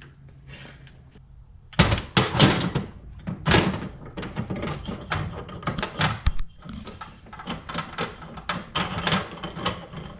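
Metal parts and hand tools knocking and clattering as a Mustang T5 transmission is handled during disassembly, starting about two seconds in with a few loud knocks and then an irregular run of clicks and clanks.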